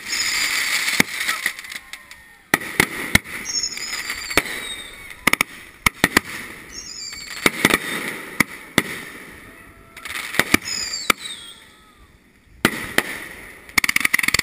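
Fireworks going off: clusters of sharp bangs and crackling every couple of seconds, with high whistles gliding up and down between them.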